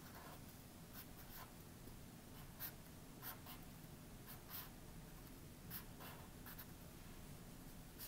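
Sharpie felt-tip marker drawing on paper: faint, irregular short scratchy strokes.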